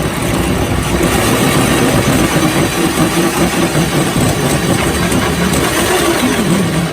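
Power drill running under load as it drills a hole, a steady motor whine with the pitch wavering and dipping briefly near the end as the bit bogs down.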